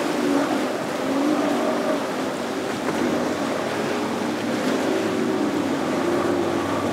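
Single Mercury outboard on a Sea Ray center console running at speed through chop, a steady engine drone whose note wavers a little as the boat rides the waves, over the rush of water and spray off the hull.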